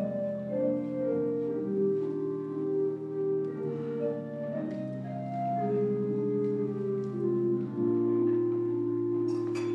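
Church organ playing a slow piece of sustained chords over long-held bass notes.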